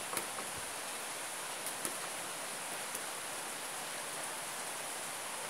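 Steady outdoor background hiss with a few faint clicks scattered through it.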